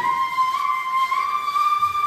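Ney, the end-blown reed flute, playing a slow solo taksim in makam Hicaz: one long held note that climbs in small steps in pitch.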